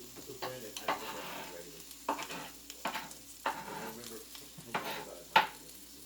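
Food sizzling in a frying pan while it is stirred, with a spatula knocking and scraping against the pan about six times; the loudest knock comes near the end.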